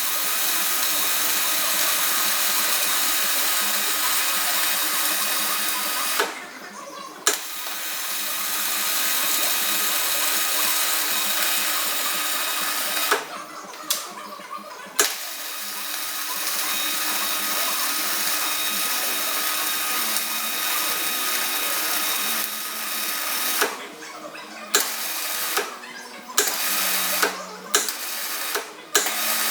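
Electric welding arc hissing and crackling in long runs of several seconds with short breaks between, then a string of short bursts near the end, like stitch or tack welds. A faint steady hum sits underneath.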